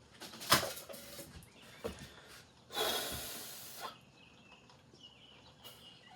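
Rustling and handling noises as a face mask is pulled off, with a sharp scuff about half a second in and a loud hiss lasting about a second near the middle.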